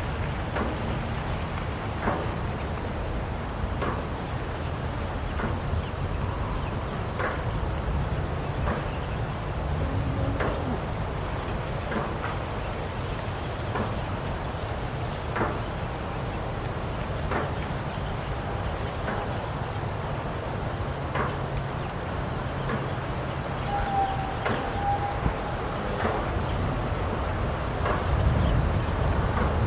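Outdoor farm ambience: a steady, high chirring of crickets or other insects over a low rumble, with faint scattered knocks and clicks and one short call about 24 seconds in.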